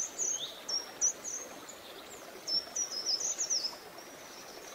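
Small birds chirping in quick, short, high notes over a steady hiss, a nature-ambience soundtrack. The chirps come in two flurries, one near the start and one in the middle.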